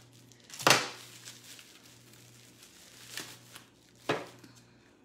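Plastic packaging wrap crinkling and tearing as a package is cut and pulled open with scissors: a loud rustle about half a second in, then two shorter ones near the end.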